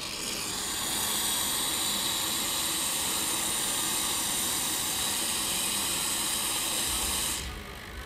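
Espresso machine steam valve opened, with steam hissing out steadily, then shut off abruptly about seven seconds in.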